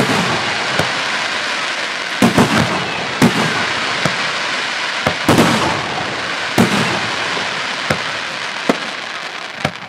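Aerial firework shells of 2.5 to 5 inch bursting overhead in a professional display. Sharp bangs come about once a second over a continuous hiss, and the sound thins out near the end.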